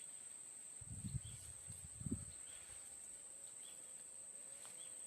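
Steady high-pitched drone of insects, with a few dull low thumps about one and two seconds in.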